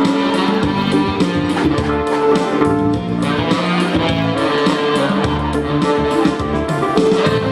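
Instrumental band music led by guitar, playing a melody over a steady accompaniment.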